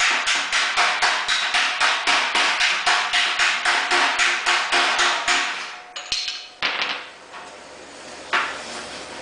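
Hammer on dolly striking sheet steel in quick, even blows, about four a second: planishing a fresh weld on a fender patch panel, as done in hammer welding. The steady blows stop about six seconds in, followed by a few single knocks.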